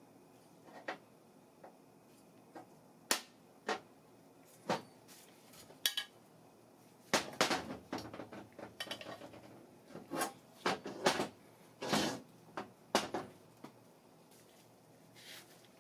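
Metal engine parts being handled on a workbench: irregular knocks and clinks as a small engine's crankshaft, camshaft and aluminium block are picked up, set down and turned over. The knocks come sparsely at first and most often in the second half.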